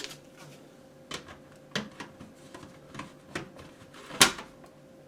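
Sharp clicks and knocks from a Siterlink combination smoke and carbon monoxide alarm being handled and fitted onto its ceiling mounting base. There are about five separate knocks, and the loudest comes about four seconds in.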